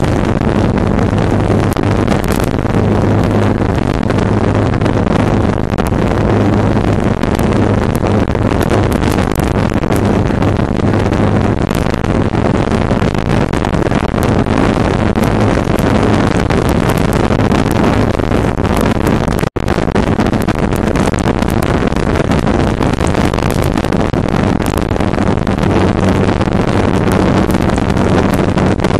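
Heavy wind rush on the microphone over the steady drone of a Yamaha R15's single-cylinder engine cruising at highway speed. The sound drops out for a split second about two-thirds of the way through.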